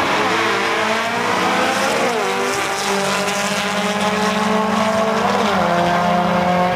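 Air-cooled VW Beetle drag car's engine running hard down the strip. Its pitch drops about two seconds in and again about five and a half seconds in, as it shifts up through the gears.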